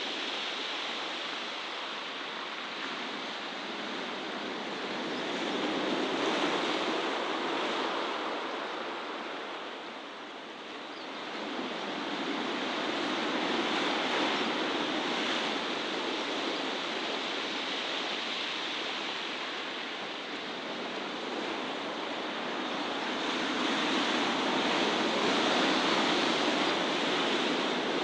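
Sea waves washing onto a rocky shore, a steady rush of surf that slowly swells and eases, louder around three times.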